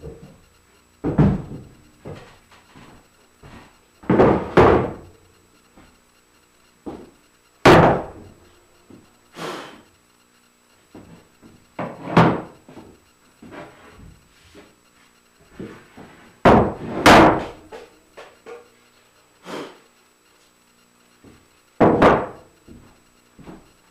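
Wooden parts of a homemade router sled jig being handled and set down on a wooden workbench: a string of separate wooden knocks and thuds, several of them loud, with quieter scraping and handling between.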